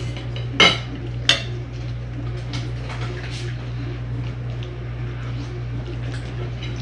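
Forks clinking and scraping on dinner plates while eating: two sharp clinks in the first second and a half, then lighter taps. A steady low hum runs underneath.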